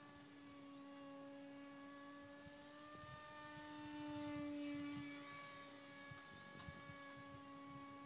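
Small radio-controlled model plane's motor and propeller giving a faint steady hum, louder for a couple of seconds near the middle as the plane passes close.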